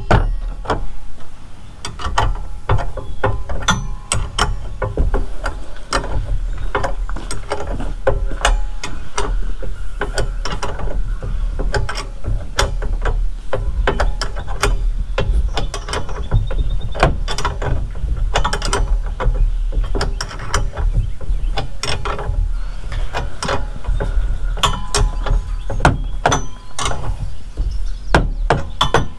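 Ratchet wrench clicking in quick, irregular runs as bolts are tightened on the handle brackets of a wheel hoe.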